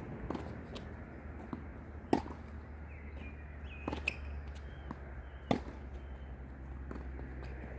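Tennis ball being hit back and forth in a doubles rally: sharp pops of ball on racket strings and court, the two loudest about two seconds in and about five and a half seconds in, with fainter knocks between. A few faint high squeaks come in the middle.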